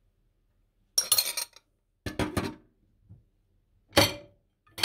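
Kitchen utensils and dishes clinking: a metal spoon and glass and ceramic dishware knocking together in short sharp clusters, about a second in, around two seconds in, and again near the end.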